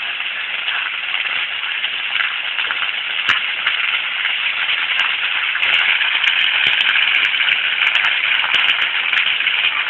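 A fire burning: a steady hiss with scattered sharp crackles, which come thickest in the second half.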